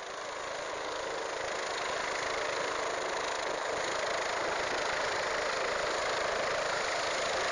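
Helicopter engine and rotor running with a steady, even noise that grows slightly louder over the first couple of seconds.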